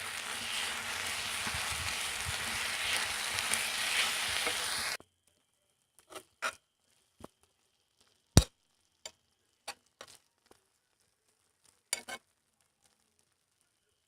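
Tuna sisig mixture with mayonnaise sizzling and frying in a hot pan, cutting off abruptly about five seconds in. A scattered series of sharp clicks and taps follows.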